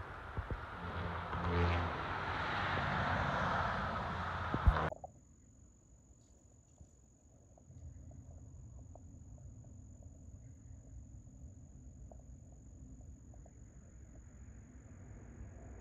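A road vehicle passing, its tyre and engine noise swelling over a few seconds, cut off suddenly about five seconds in. Afterwards there is a faint low rumble with a thin, steady high-pitched whine.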